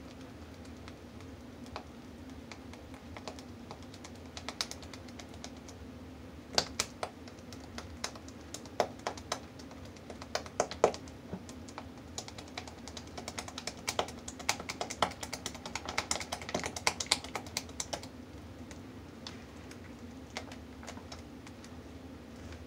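A spatula stirring thick hot-process soap batter in a plastic mixing bowl, mixing in the fragrance: irregular clicks and taps of the spatula against the bowl, thickest through the middle stretch, over a steady low hum.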